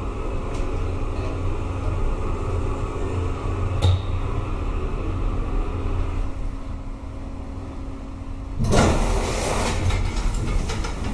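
1984 Valmet hydraulic lift in motion: a steady hum with a fixed tone, and a single click about four seconds in. About eight and a half seconds in the hum stops and a loud rush of noise follows as the lift's doors open.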